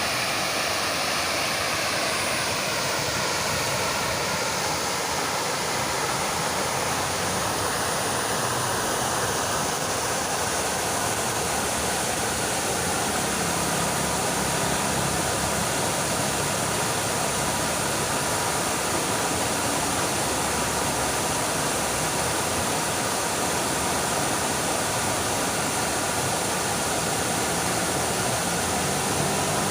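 Fountain water splashing in a steady, even rush. A faint engine passes with a falling pitch in the first few seconds, and a faint steady hum joins about halfway through.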